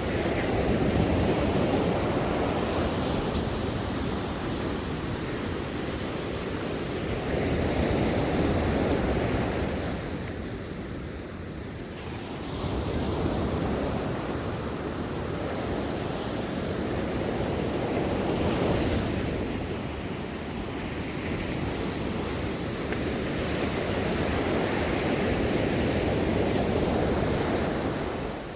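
Ocean waves breaking and washing on a shore, a steady rush that swells and eases in slow surges every five seconds or so.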